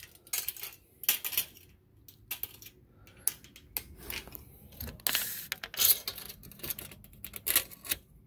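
Steel tape measure being pulled out and handled: irregular metallic clicks, rattles and scrapes, loudest about five to six seconds in.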